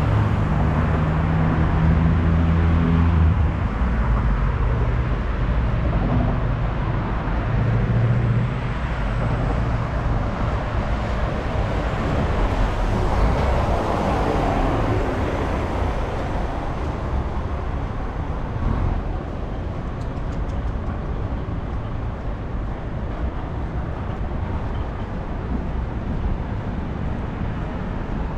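City street traffic noise: motor vehicles passing with a steady low rumble. An engine's hum is strongest in the first few seconds and again about eight seconds in.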